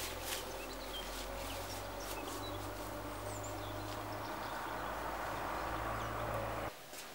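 A steady low motor hum, with a few faint bird chirps over it; the hum cuts off abruptly just before the end.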